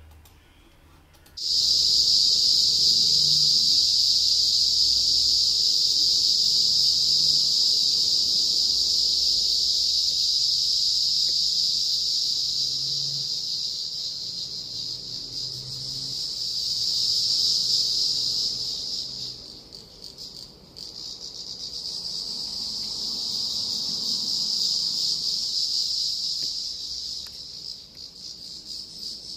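Loud chorus of insects droning at a steady, shrill high pitch. It starts abruptly about a second and a half in, fades and breaks off briefly about two-thirds of the way through, then swells back.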